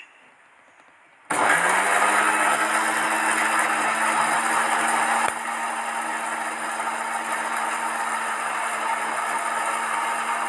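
Electric mixer grinder switching on about a second in and running steadily at full speed, grinding dried Sichuan pepper in its steel jar: a constant motor hum under a loud grinding noise. It gets a little quieter about halfway through.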